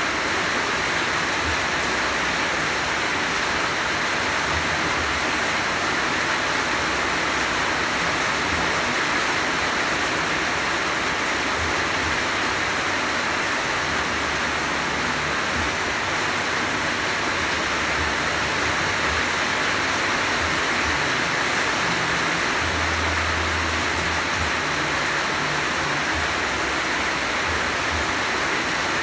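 Heavy rain falling steadily: a dense, even hiss that holds at the same level throughout.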